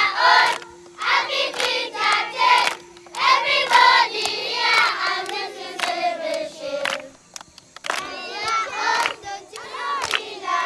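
A large group of children singing together, with hand claps through the singing and short breaks between phrases.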